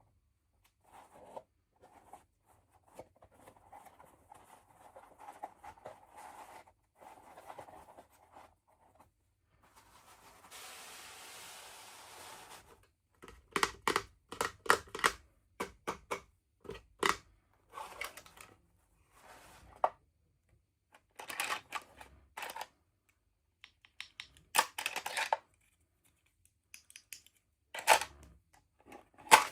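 Hands opening toy packaging: soft rustling, then a steady tearing rasp of about two seconds, then several runs of sharp plastic clicks and snaps.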